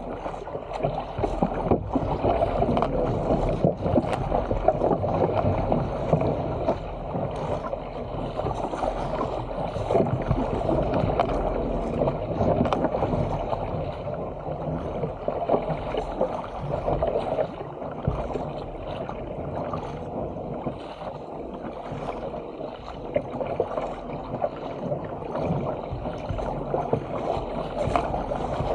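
Sea water splashing and rushing along the hull of a Stealth 457 fishing ski as it is paddled downwind, with the paddle blades splashing in and out of the water at irregular moments throughout.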